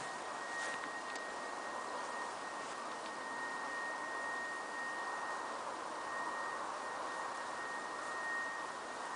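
An unexplained steady high-pitched tone, like a thin whistle, holding one pitch with slight swells in loudness over a hiss of background noise.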